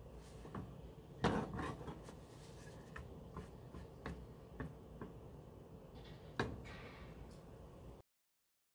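Light clicks and knocks of a chapati being turned by hand in a fry pan on a gas stove's grate, with the pan shifted on the burner; two louder knocks come about a second in and near the end. The sound cuts off suddenly about a second before the end.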